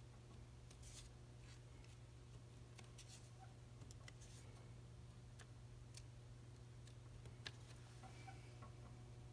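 Near silence: room tone with a steady low hum and a few faint scattered ticks.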